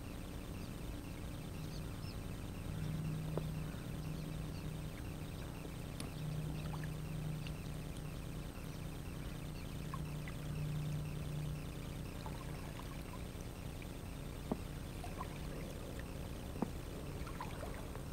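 Inflatable kayak paddling on a calm river: water trickling and splashing off the paddle blades, with a low hum for several seconds in the middle and two light clicks near the end.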